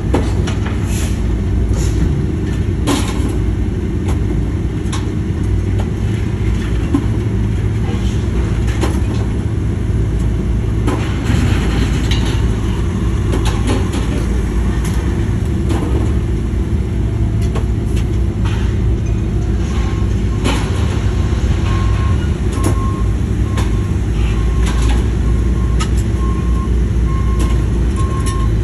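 Kobelco hydraulic excavator with a scrap shear running steadily while its jaws crunch and tear a truck's metal, with repeated sharp snaps and clanks. From about two-thirds of the way through, a reversing beeper sounds at an even pace.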